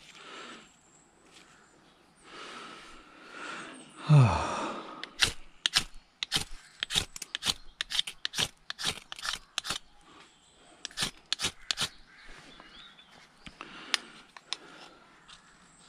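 A steel knife scraped down a ferrocerium rod again and again, making sharp rasping strikes about two a second, to throw sparks into dry tinder. Just before the strikes begin there is a short sound that falls in pitch, the loudest moment, with softer rustling of cloth and leaves around the strikes.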